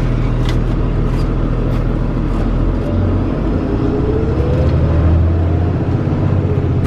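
Fire rescue truck's engine running, heard from inside the cab as a steady low rumble, with a faint whine rising in pitch around the middle as the truck speeds up.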